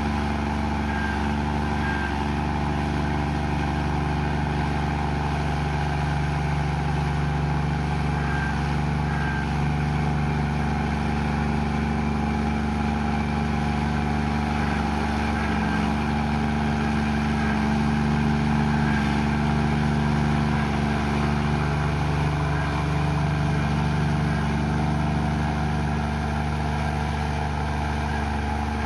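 Komatsu bulldozer's diesel engine running steadily, swelling slightly about two-thirds of the way through.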